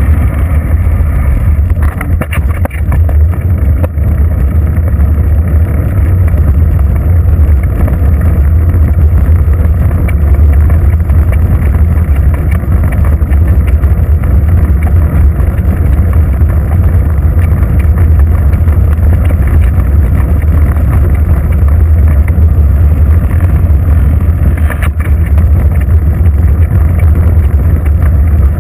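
Steady low rumble of wind buffeting a bicycle-mounted GoPro's microphone as the bike rolls along a paved road, mixed with road noise from the ride, with a couple of faint clicks.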